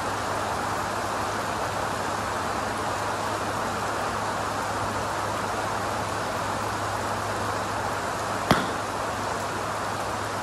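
Steady hiss of rain, and about eight and a half seconds in a single sharp crack of a Mizuno MP-33 forged blade iron striking a golf ball off a range mat.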